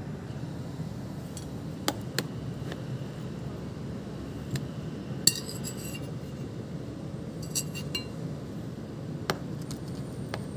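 Cutlery clinking against dishware while a poke bowl is eaten: about nine scattered short clinks, the loudest a little past halfway with a brief ringing, over a steady low background rumble.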